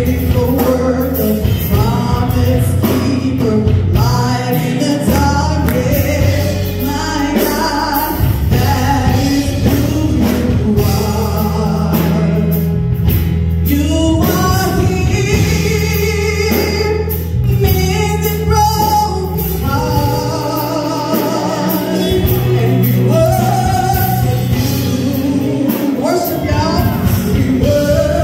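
A woman singing a gospel song into a handheld microphone over an instrumental backing with held bass notes.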